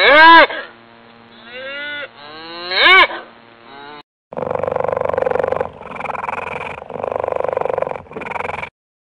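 Elk calling: three mewing calls, each rising and then falling in pitch, the first and last loud and the middle one soft. From about four seconds in, a cheetah purring, a low rapid pulsing in four long stretches.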